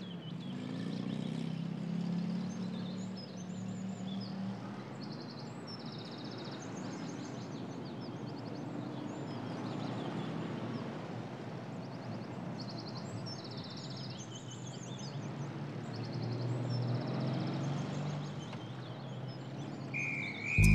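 Ambient soundscape on the film's soundtrack: an even hiss with a low hum over the first few seconds, and short bursts of rapid, high-pitched chirping that come and go.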